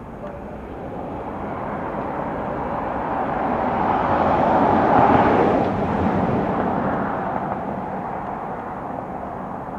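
Embraer Lineage E190 business jet's twin turbofan engines running as it moves along the runway, a steady rushing roar that swells to its loudest about halfway through and then fades.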